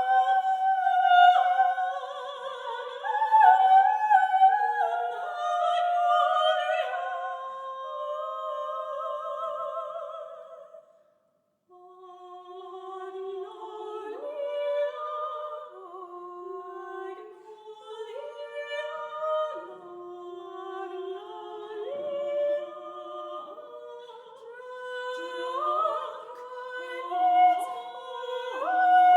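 Two unaccompanied female voices singing a contemporary classical duet in long, overlapping held notes with vibrato, the lines sliding against each other in close intervals. They break off together briefly about a third of the way in, then resume with the lower voice on low notes beneath the upper one.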